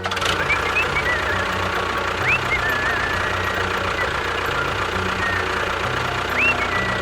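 A steady engine-like running sound, with a few short rising chirps.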